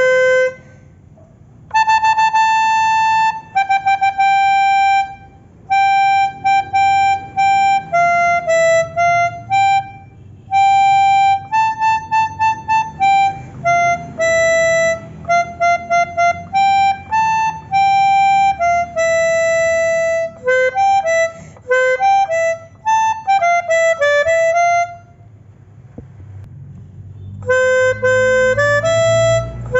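Pianika (melodica) playing a telolet bus-horn style melody, one note at a time in short phrases of repeated and stepping notes. It pauses briefly a few times and for about two seconds near the end, then starts again.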